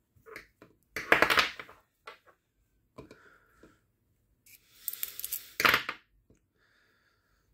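Small metal airsoft gearbox gears clinking and scraping against each other and the metal gearbox shell as they are handled, in several short bursts, the loudest about a second in and near six seconds.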